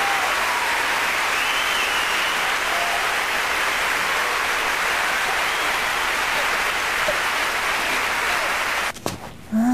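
Concert audience applauding: dense, steady clapping that cuts off abruptly near the end.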